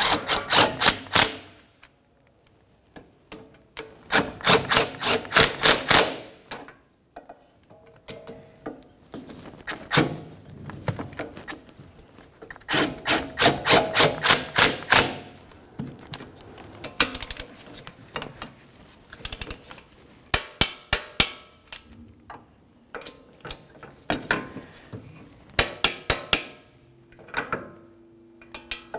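Socket ratchet clicking in repeated bursts of rapid ticks, with short pauses between, as the wheel bearing hub's mounting bolts are run in and snugged up.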